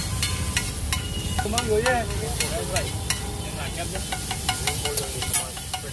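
Steel spatula chopping and scraping an omelette's masala mixture on a large flat steel griddle: sharp metal clicks and scrapes at irregular intervals over a low sizzle.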